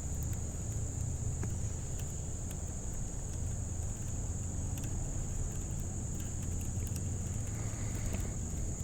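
Steady low rumble with a constant high-pitched hiss above it and a few faint clicks.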